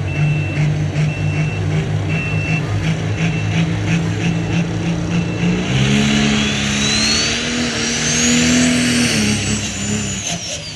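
Turbocharged diesel pulling tractor running hard, then revving up about halfway through with a rising turbo whistle that peaks and winds back down near the end. A short high beep repeats steadily through the first half.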